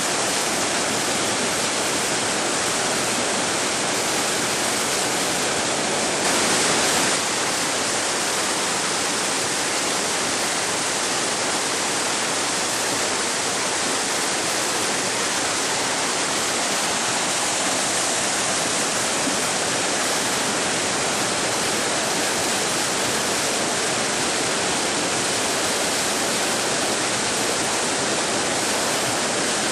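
Whitewater river rapids rushing steadily, a dense, even noise of churning water, briefly a little louder about six seconds in.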